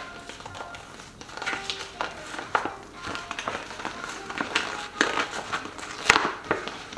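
Rustling and crinkling of packaging being opened by hand, in irregular bursts with a sharper crackle about six seconds in, over quiet background music.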